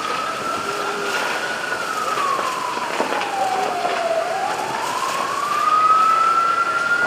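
Emergency vehicle siren in a slow wail over steady background noise: it holds high, slides down over about two seconds, then climbs back up.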